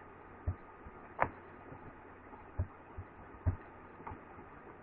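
Faint computer mouse clicks and soft low thumps, about six scattered short knocks with one sharper click about a second in, over a low steady hiss.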